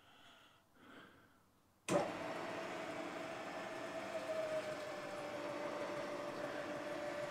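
Milling machine spindle switched on about two seconds in, starting suddenly and then running steadily with a steady whine, the roughing end mill turning free at about 600 to 700 RPM before the first cut.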